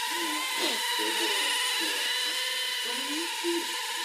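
Inductrix micro quadcopter's four small brushed motors and ducted propellers whining steadily as it hovers, a high several-toned whine that wavers slightly in pitch.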